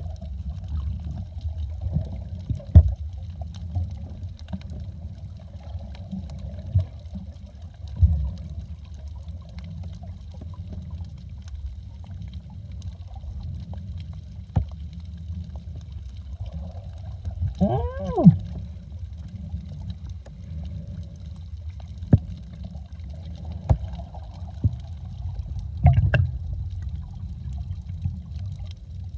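Underwater ambience picked up by a submerged camera: a steady low water rumble with scattered clicks and knocks. About eighteen seconds in comes a brief pitched call that rises and then falls.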